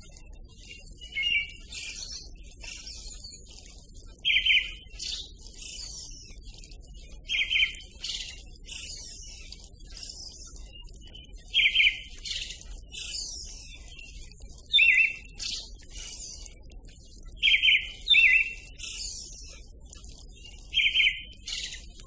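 Birdsong: one bird repeats a short, loud phrase about every three seconds, while other birds chirp more thinly and higher in between.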